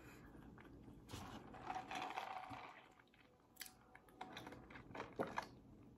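Faint eating sounds: chewing, then a sip of soft drink through a straw, with small mouth clicks.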